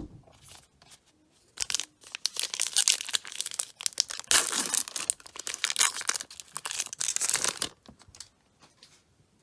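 A sports card pack's wrapper being torn open and crinkled by hand, crackling for about six seconds from a second and a half in.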